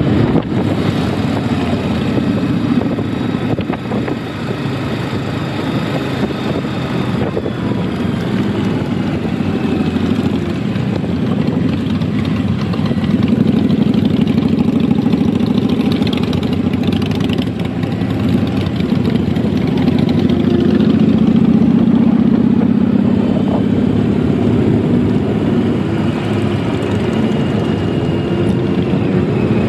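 Engines of a long column of cruiser motorcycles riding in procession, many bikes running at once, their pitch rising and falling as riders speed up and pass.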